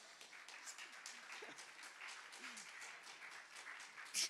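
Congregation clapping and laughing after a joke: fast, scattered applause with a few voices laughing, and one louder sharp clap near the end.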